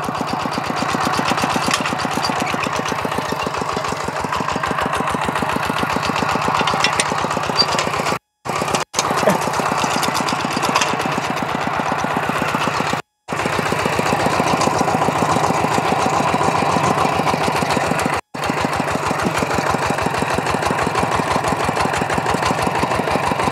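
Two-wheel walking tractor's single-cylinder diesel engine chugging steadily under load as it ploughs a flooded rice paddy. The sound cuts out for a moment a few times.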